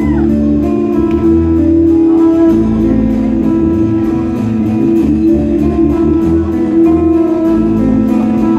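Live brass-band music in a funk and hip-hop groove: sousaphone bass line, held horn notes, guitar, and a drum kit with steady cymbal ticks.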